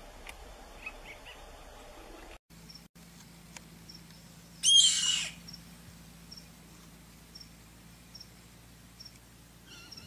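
One loud, harsh bird-of-prey scream lasting about half a second, midway through, over faint short high chirps repeating about twice a second.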